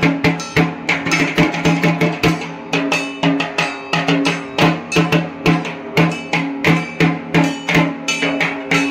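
Durga Puja drumming: a barrel drum (dhak) beaten with sticks in a fast, steady rhythm of about three strokes a second, with a sustained ringing tone underneath.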